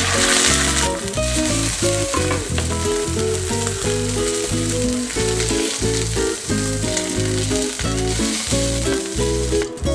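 Food sizzling as it fries in a pan, the hiss loudest in the first second, over background music.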